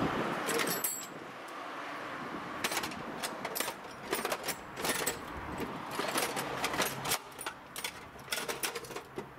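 Metal hand tools clinking and rattling as someone rummages for the right wrench: a run of irregular clicks and clatters.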